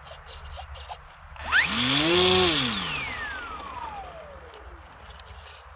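Electric motor and propeller of a small foam RC plane whining past: the pitch climbs to a peak about two seconds in, then glides steadily down as the plane moves away and fades.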